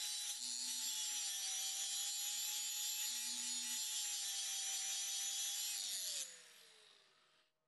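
Angle grinder with an abrasive disc grinding the face of a round steel plate, a steady grinding noise over the motor's whine. About six seconds in the grinder is switched off: the grinding stops and the whine falls as the disc spins down.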